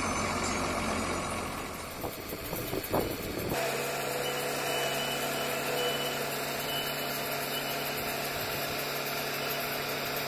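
Truck-mounted borewell drilling rig running, first as rough machinery noise with a few knocks, then about a third of the way in a steady engine hum as the rig's hydraulic mast is lowered onto the truck.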